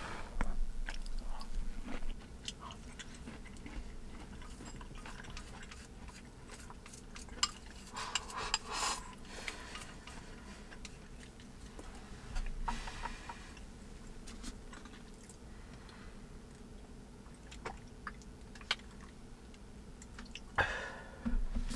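A person eating close up: chewing, with small clicks of chopsticks against a metal mess tin and a wooden bowl, and a sip of broth a little before the middle.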